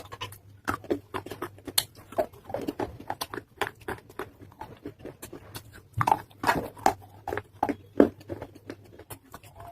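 Close-up chewing of soaked pieces of an earthen clay pot (matka): a continuous run of irregular soft crunches and wet clicks, thickest about six to eight seconds in. The clay is wet and soft.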